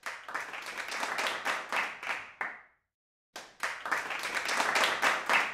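Applause: many hands clapping together in two bursts of a few seconds each, broken by a brief silence about three seconds in.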